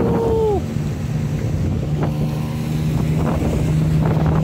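Small outboard motor, the boat's 15 hp engine, running at a steady speed with the boat under way, with water and wind noise; a short falling tone sounds at the very start.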